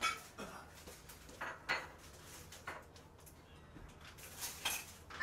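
Faint, scattered knocks and clicks of someone moving about and handling things in a kitchen, heard from across the room.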